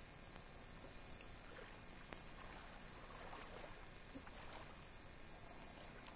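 Faint splashing of people wading and hauling a boat through shallow water, under a steady hiss.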